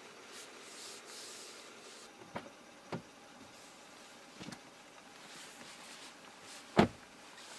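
Clothing rustling and a few light knocks as a person climbs onto a leather rear seat, then one heavy thud near the end as the 2019 Kia K900's rear door is pulled shut.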